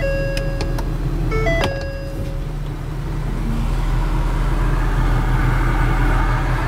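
Ford Super Duty pickup's turbo diesel engine running with a steady low rumble as the truck pulls away, getting a little louder after about three seconds. A stepped two-note warning chime from the cab sounds twice in the first two seconds.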